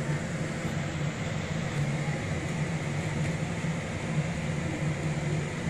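A steady low mechanical hum with an even background hiss, unchanging throughout.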